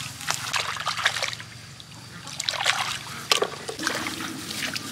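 Hands splashing and sloshing in shallow muddy water among grass stems while groping for snails, in uneven bursts with a sharper splash about three seconds in.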